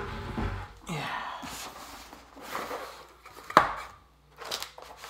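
Cardboard kit box being opened by hand and its contents handled: a run of rubbing and knocking sounds, with one sharp knock about three and a half seconds in.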